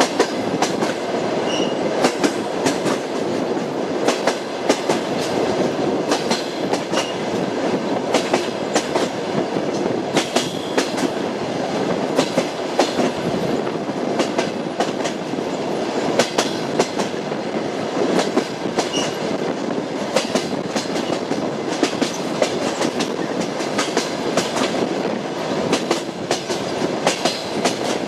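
Train running on the rails: a steady rumble with the wheels clicking over rail joints, the knocks coming in frequent irregular groups.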